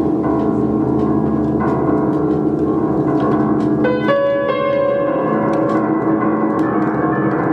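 Upright piano played loudly, a dense wash of sustained low and middle notes ringing together. A quick cluster of high notes comes about four seconds in.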